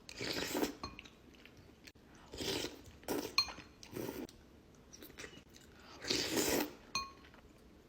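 Close-miked eating: bites and chewing of noodles and hot dog, coming in several loud bursts, with a couple of light clinks of a fork on the dish.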